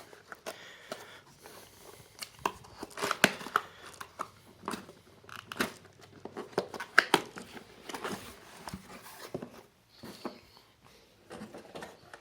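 Keyboard packaging being handled and rummaged through: irregular crinkling, rustling and tapping of cardboard and paper or plastic wrapping, loudest about three and seven seconds in.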